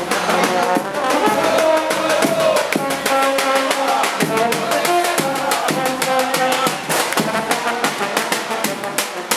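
Live band music: a brass horn plays a melody over a fast, steady beat of drum and cymbal strokes.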